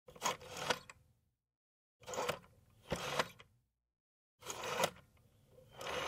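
Close-miked rotary dial of a Bell desk telephone, turned and released several times: each stroke is a short mechanical whirr that starts and stops with a click, with brief silences between strokes.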